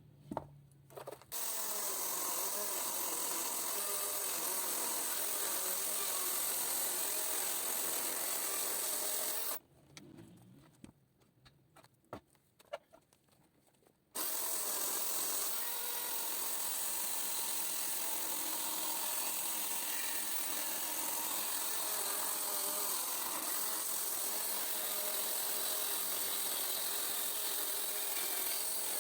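A power tool working walnut wood, running steadily with a slightly wavering motor pitch. It stops for about four seconds partway through, leaving only a few light handling clicks, then starts again.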